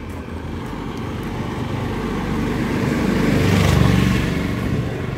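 A motor vehicle drives past on the road, growing louder to a peak about three and a half seconds in and then fading.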